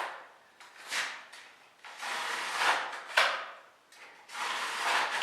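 Razor knife blade scoring fiber cement siding board along a level: a series of scraping strokes, each about a second long, repeated to deepen the groove before the board is snapped.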